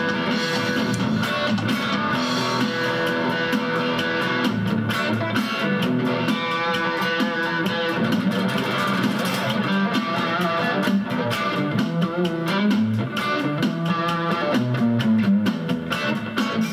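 Electric guitar with a Chinese Alnico pickup in the bridge position playing an instrumental theme tune.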